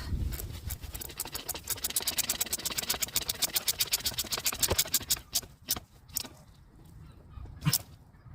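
Ratchet wrench clicking rapidly, several even clicks a second for about five seconds, followed by a few scattered clicks and knocks of tools.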